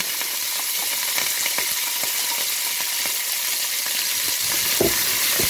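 Chopped leek, carrot and celery sizzling in hot oil in a stainless-steel pot, stirred with a wooden spatula that clicks and scrapes among the vegetables, with a couple of dull knocks near the end.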